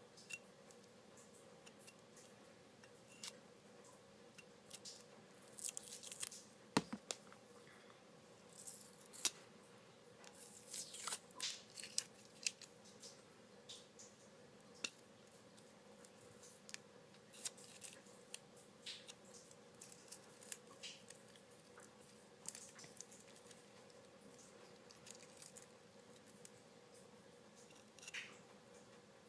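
Faint, irregular scratching, clicking and rustling as something is picked and peeled off a new knife by hand, with one sharper knock about seven seconds in.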